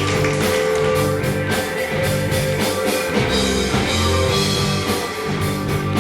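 Rock music with guitar and a drum kit, a steady beat over held bass notes.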